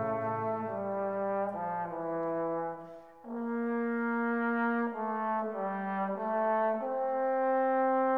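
Background music: a slow melody of long held notes in a brass sound, with a short break a little before the middle.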